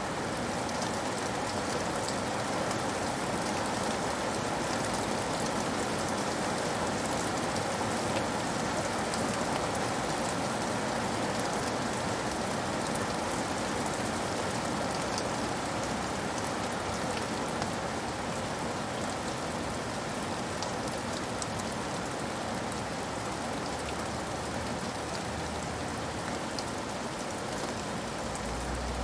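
Steady rain falling on a hard surface: an even hiss with scattered sharp drop ticks, holding level throughout.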